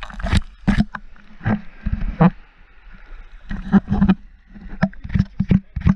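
Shallow sea water sloshing and splashing against a camera held at the water's surface, a string of irregular splashes and knocks.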